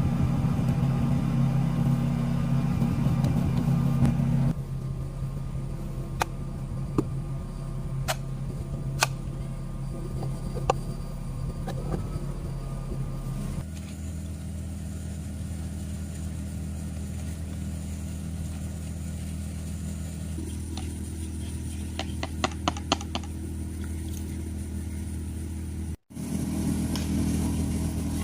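An engine running steadily with a low hum, loudest for the first few seconds and then quieter. A few sharp clicks sound in the middle, and a short run of light clinks comes near the end.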